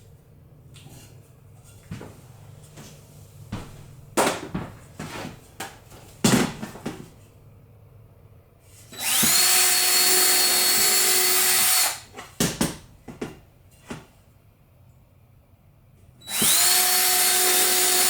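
Power drill boring pilot holes into a thin pine 1x2 board: a few knocks as the board and drill are handled, then two runs of about three seconds each. In each run the drill spins up quickly to a steady pitch, then stops.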